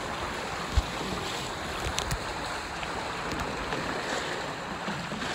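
Strong wind buffeting the microphone over water rushing past the hulls of a Hobie 14 catamaran sailing fast in 25–30 knots of wind; a steady rush with a low thump about a second in.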